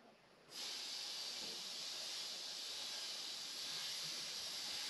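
Compressed-air blow gun pushed into a diesel fuel hose, giving a long, steady hiss of air that starts about half a second in.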